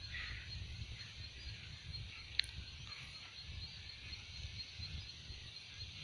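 Faint open-air field ambience: a low wind rumble on the microphone under a faint high hiss, with one short sharp click about two and a half seconds in.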